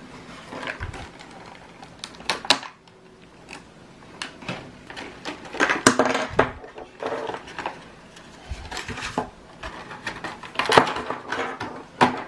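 Stiff clear plastic blister packaging being handled and pulled apart: irregular crinkling and crackling, with several sharp plastic clicks and snaps.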